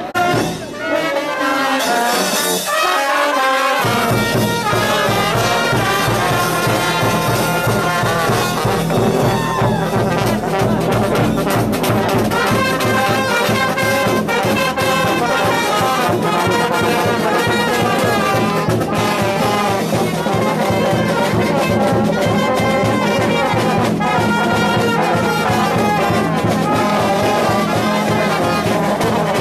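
Brass band playing a lively tune, trumpets and trombones over a steady quick beat. The full band comes in about four seconds in.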